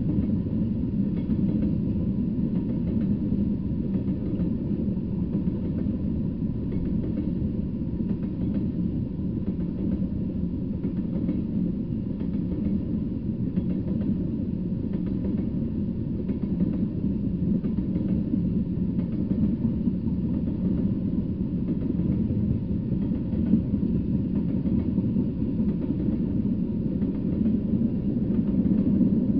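Freight train of tank cars rolling past, a steady low rumble of steel wheels on the rails with faint repeated clicks.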